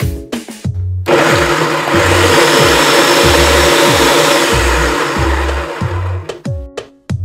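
Electric food processor running, its blade chopping cauliflower florets into rice-sized bits. It starts abruptly about a second in and stops about a second before the end, over background music with a drum beat.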